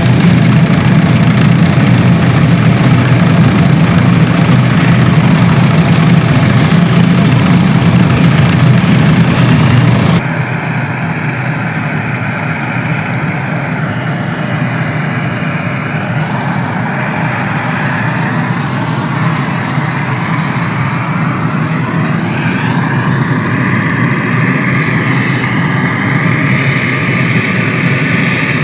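Restored 1950s oil-fired Steamaster steam cleaner running with a steady low hum from its burner fan and pump, while high-pressure steam hisses from a hand-held wand nozzle. About ten seconds in the sound drops and turns duller, with the hiss wavering as the jet moves.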